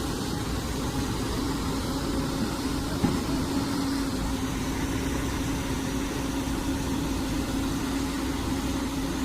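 A heavy machine's engine running steadily, with a constant low hum and one short sharp knock about three seconds in.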